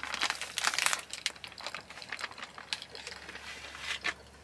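Packaging crinkling and rustling as it is handled: dense crackling in the first second, then a scatter of crackles until about four seconds in.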